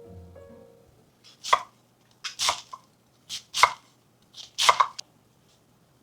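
A knife chopping on a cutting board in a series of sharp, uneven strokes, after the tail of background music fades out in the first second.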